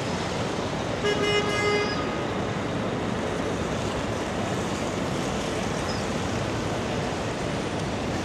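A vehicle horn honks once, briefly, about a second in, over steady street traffic noise.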